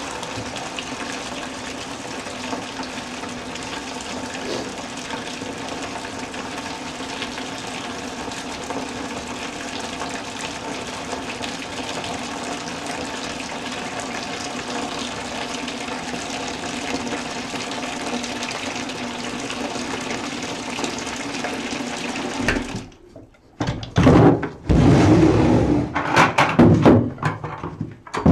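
Water from a bathtub faucet running steadily into a 5-gallon plastic bucket, filling it for a hand wash of laundry. About 23 seconds in the running water stops abruptly, and loud irregular knocks follow as the plastic buckets are handled.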